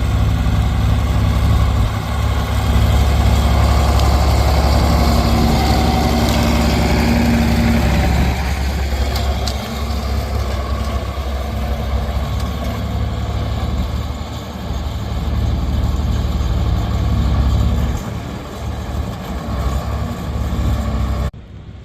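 Heavy diesel engine of an excavator running: a steady low drone, heavier for several seconds near the start, then uneven as the load changes.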